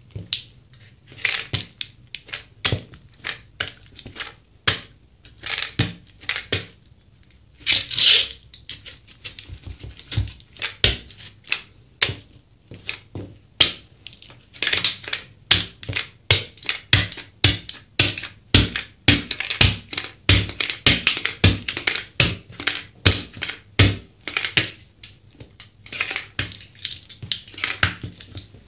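Aluminium energy-drink can being crushed under a sneaker's rubber sole: a long, irregular run of sharp metallic crackles and crunches, with one louder crunch about eight seconds in and the crackling thickest through the middle.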